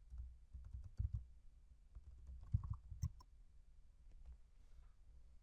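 Typing on a computer keyboard: a quick run of keystrokes for about three seconds, then it stops.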